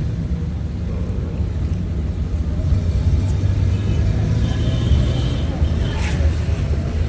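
Steady low rumble of a vehicle driving along a town road, engine and road noise, with a brief rush of noise about six seconds in.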